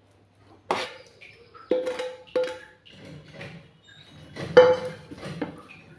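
A spoon knocking and scraping against a pan and a stainless steel plate while soft dough is scooped from one to the other: about five sharp clinks that ring briefly, with softer scraping between them.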